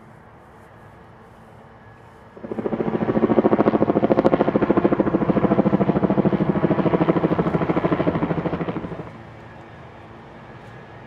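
Helicopter flying overhead, its rotor blades beating in a rapid, even rhythm. It comes in suddenly about two seconds in, stays loud for about six seconds, then drops away.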